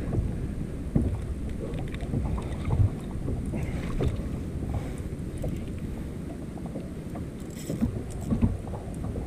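Steady low rumble of wind on the microphone and water around a kayak, with a few knocks about one, three and eight and a half seconds in.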